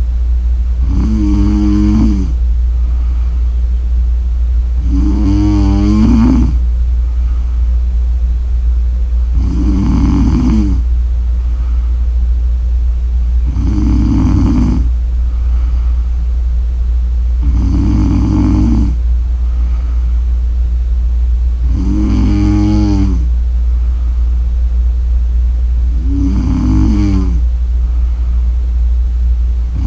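A woman snoring in her sleep, with a snore about every four seconds, each lasting about a second. A steady low hum runs underneath.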